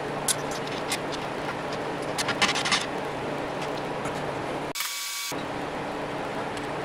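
A few light metallic clicks and taps, clustered about two seconds in, as a dial thermometer is fitted and tightened through the front wall of a painted sheet-steel smoker box, over a steady background hum.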